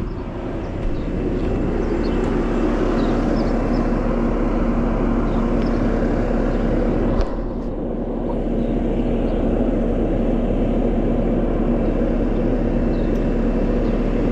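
Bobcat skid steer engine running steadily, with one short knock about seven seconds in.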